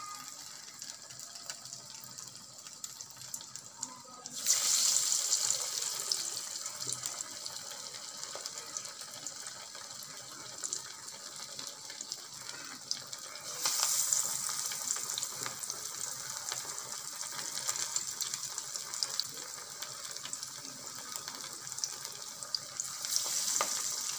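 Mutton keema vadas deep-frying in hot oil: a steady sizzle that surges suddenly louder three times (about four seconds in, about halfway through, and near the end) as fresh vadas are slipped into the oil one by one.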